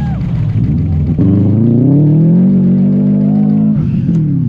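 Rally car engine revving hard: the pitch drops at the start, then climbs steadily for about two seconds, holds, and falls away again near the end. A single sharp crack about a second in.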